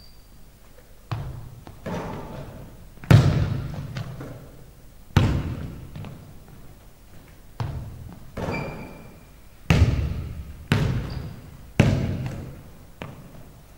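A basketball bouncing and thudding on a hardwood gym floor: about ten irregularly spaced knocks, each trailing a long echo in the big hall.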